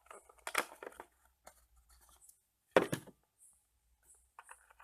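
Speaker packaging being handled: two short rustling scrapes of plastic and cardboard, one about half a second in and a louder one near three seconds in, with small crinkles and ticks between.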